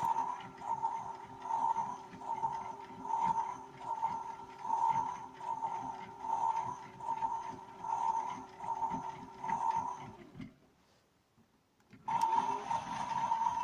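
Toy washing machine running: its small motor and drum whir with a pulsing hum that swells and fades a little more than once a second over a light rattle. It stops for about a second and a half near the end, then starts again.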